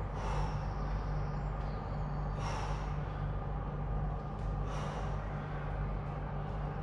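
Forceful breaths, a sharp rushing exhale about every two and a half seconds, three in all, in time with the reps of a kneeling overhead dumbbell press. A steady low hum runs underneath.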